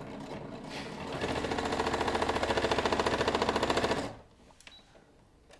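Brother ST150HDH heavy-duty sewing machine stitching through four layers of leather, struggling to push through the stack. It runs softer for about a second, then goes into a louder rapid, even stitching rhythm, and stops suddenly about four seconds in.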